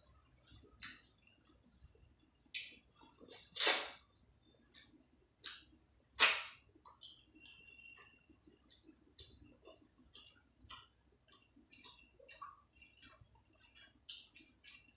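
Close-miked eating sounds: wet squishes and smacks from fingers mixing rice with curry on a plate, and from chewing, coming as separate short bursts. Two louder ones fall around four and six seconds in, and a run of small crackly squishes comes near the end.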